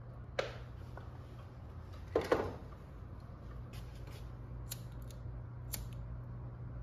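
Two sharp snaps, the second a quick double, then a pocket lighter clicking several times as it is struck and lit for a cigar, over a low steady hum.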